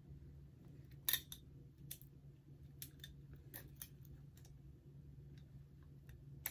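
Butterfly knife trainer being flipped: irregular sharp clacks as the handles and blunt trainer blade swing and knock together, the loudest about a second in, over a faint steady low hum.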